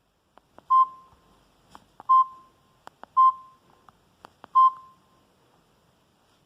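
Samsung GT-E2121L phone keypad: buttons clicking, with four short high beeps as keys are pressed, one about every second and a bit, each fading quickly.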